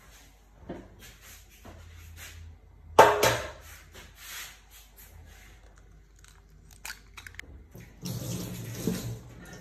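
A sharp knock about three seconds in, then a run of small clicks as an egg is cracked into a glass mixing bowl. Near the end a tap starts running into a sink while hands are washed.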